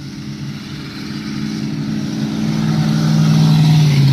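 A motor vehicle's engine running steadily and growing louder, as if drawing nearer.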